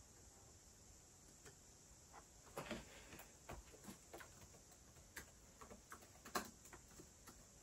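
Faint, irregular keystrokes on an HP ProBook 450 G2 laptop keyboard, starting about a second and a half in.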